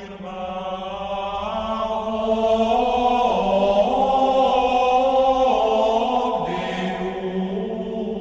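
Background choral music: a choir holding slow, sustained chords that change every second or two, swelling louder in the middle and easing off toward the end.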